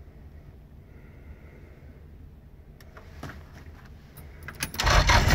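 A UAZ's engine started with the ignition key: a few clicks, then about five seconds in it catches and runs loudly. Before that, only a faint low hum.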